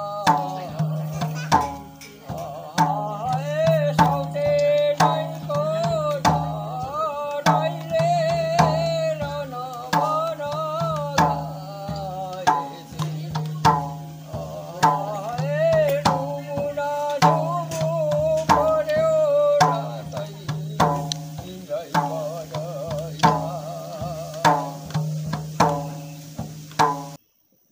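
An elderly man sings a Maruni folk song in a wavering voice while beating a steady rhythm on a madal, the Nepali two-headed barrel hand drum, whose deep tone hums under the singing. The music cuts off abruptly near the end.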